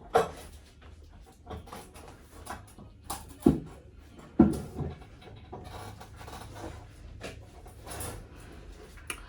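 Scattered knocks and thuds over faint rustling, the loudest about three and a half and four and a half seconds in.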